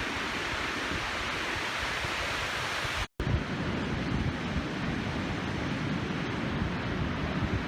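Steady rush of ocean surf mixed with wind. About three seconds in, the sound drops out briefly; after that, low wind buffeting on the microphone dominates.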